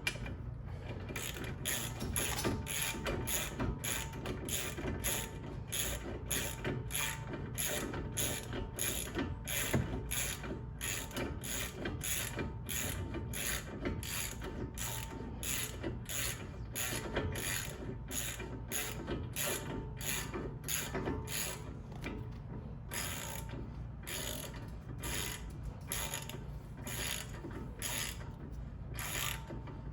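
Hand socket ratchet wrench clicking steadily, about two clicks a second, as it runs bolts down on a car's brake assembly. The clicks break off briefly about two-thirds of the way through, then resume.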